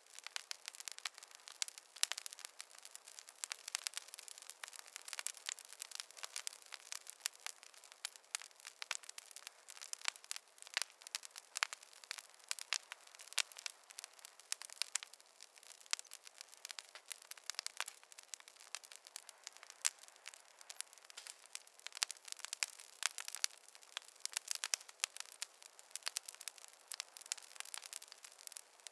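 Campfire crackling: a dense, irregular run of sharp pops and snaps over a faint hiss.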